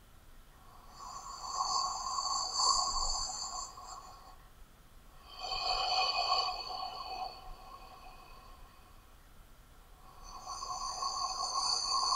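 A person breathing through an open mouth: three slow breaths, each two to three seconds long, with pauses of a second or more between them.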